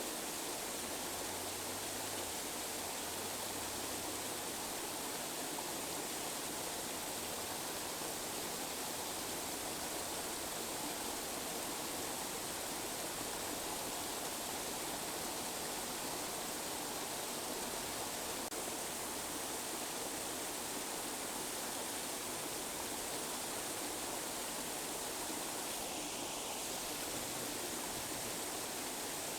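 Steady, unchanging hiss of tinnitus masking noise, brightest in the high treble with little bass.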